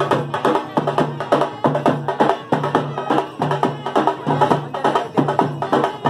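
Veeragase folk dance music played live: a two-headed barrel drum beaten in a fast, steady beat, with a reed wind instrument playing a melody over it.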